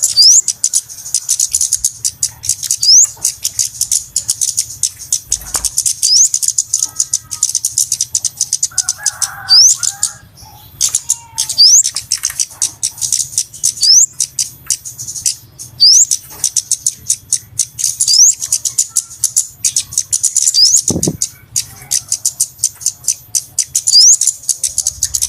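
Flowerpecker calls from a bird-lure recording: a fast, high-pitched ticking chatter of many notes a second, with a thin rising note every couple of seconds, over a faint low hum.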